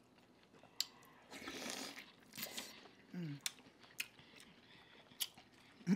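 Close-up eating sounds of seafood-boil food: wet chewing and crunching with sharp mouth clicks and smacks scattered through. A short hum of enjoyment comes about three seconds in.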